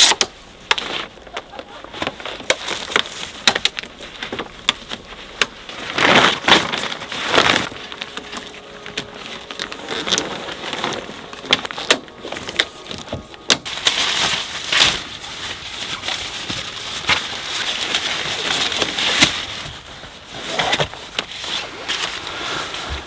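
Rustling and crinkling of gear being handled, with many scattered clicks and knocks and a few louder bursts of rustling about six to seven seconds in.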